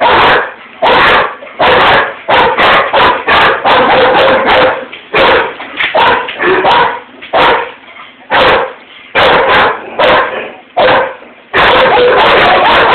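German Shepherd and Rottweiler barking at something outside the window: a loud, fast run of barks, one or two a second, that runs together into near-continuous barking near the end.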